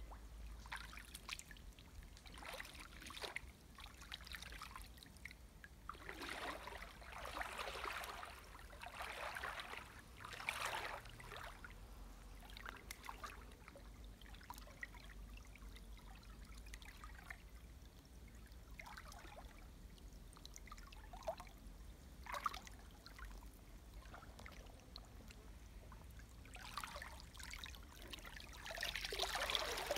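Shallow creek water sloshing and splashing as a person moves through it on their knees. The splashing swells a few times, loudest near the end as the person leans forward onto their hands in the water.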